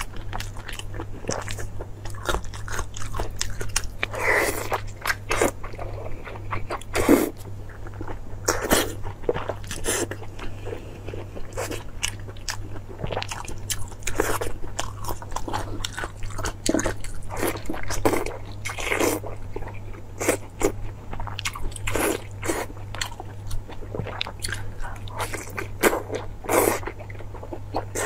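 Close-up eating sounds: a person biting and chewing soft, glossy braised pork intestine, with many irregular wet mouth clicks, over a steady low hum.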